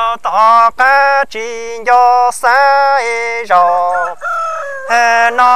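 Hmong kwv txhiaj sung poetry: a voice chanting a string of short syllables, each held on a high, steady pitch. There is a brief break in the line about four seconds in.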